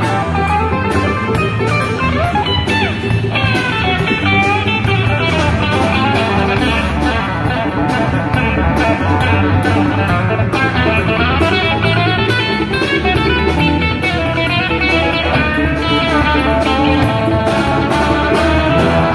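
Live blues band playing: an electric guitar carries bending lead lines over drums and bass guitar, without vocals.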